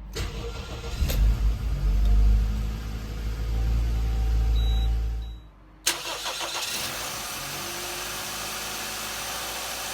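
Toyota Probox car engine started by its starter motor and running. About six seconds in, the sound cuts off briefly and a steady engine run follows.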